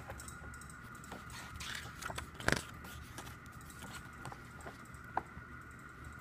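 Glossy pages of a CD album photobook being turned and handled: a paper swish, then a sharp snap of the page about two and a half seconds in, with light taps and one more click near the end.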